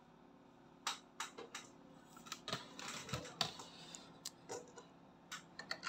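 Light, irregular clicks and taps of a metal bobbin case and bobbin being handled under an industrial sewing machine, starting about a second in.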